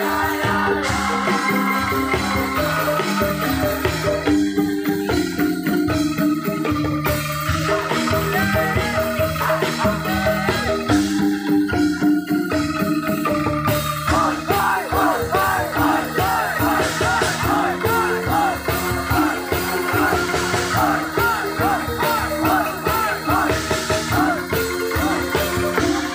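A tek-tek ensemble of bamboo kentongan and other bamboo percussion plays a dense, rhythmic piece with a sustained melodic line. About halfway through, a wavering high melody joins.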